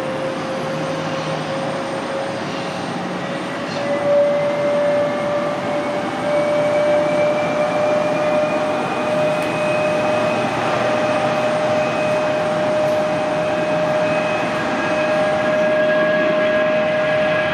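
Pratt & Whitney PW2040 jet engines of a Boeing 757 freighter at takeoff thrust during the takeoff roll: a loud, steady whine over a rumble, rising slowly in pitch as the aircraft accelerates toward the microphone.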